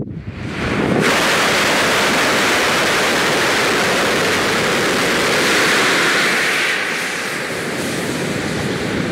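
Aerospike solid rocket motor burning HTPB composite propellant, igniting on a static test stand. It rises over about the first second into a steady, loud roar with no chuffing, then drops a little about seven seconds in as the regressive burn tapers off.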